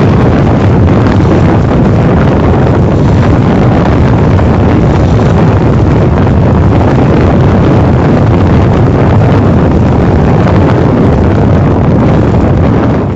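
Steady running noise inside a High Speed Train passenger coach at speed: a loud, low rumble of wheels on the track and the coach body, fading out near the end.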